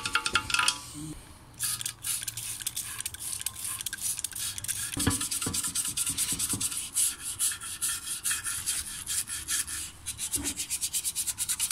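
Toothbrush scrubbing the greasy inside of an engine tappet (valve) cover wet with degreaser, in rapid back-and-forth strokes with a short pause about a second in.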